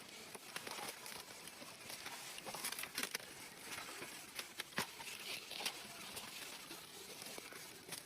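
Footsteps through forest undergrowth: dry leaves and twigs rustling and crackling, with scattered sharp snaps, faint and irregular.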